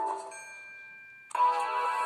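KAZAM Trooper2 phone ringtones: a quick chiming melody ends with its last notes fading away, and a little over a second in the next tone starts abruptly.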